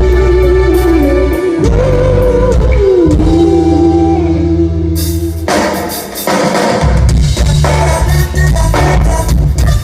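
Rock band playing live: a long, held lead line that bends in pitch over steady bass notes, then cymbal crashes and drums come in about five seconds in, and the full band carries on.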